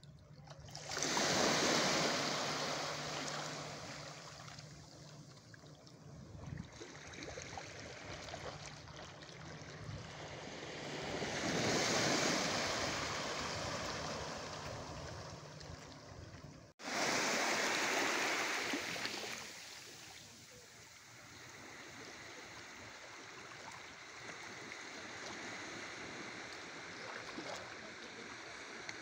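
Small sea waves washing in on the shore, the surf swelling and fading every several seconds, with a break in the sound about two thirds of the way through.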